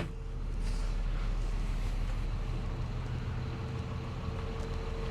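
Steady low drone of the Iveco 170S28 coach's engine heard inside the passenger cabin, with a faint steady whine above it. A single sharp click right at the start.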